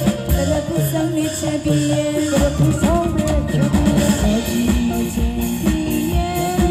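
Music with drums beating under a melody whose notes hold and slide in pitch.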